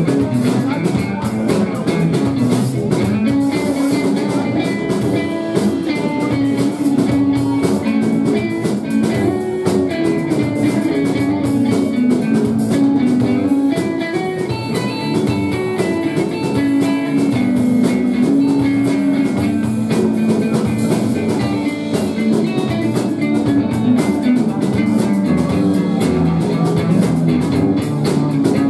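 Live rock band playing: electric guitar over a drum kit, steady and loud with no break.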